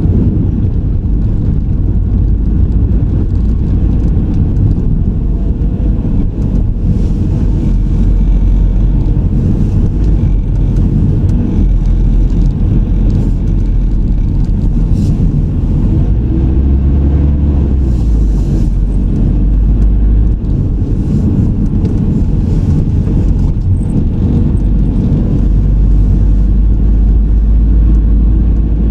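A car driving along city roads heard from an onboard camera: a steady, loud low rumble of engine and road noise, with the engine note rising and falling around the middle.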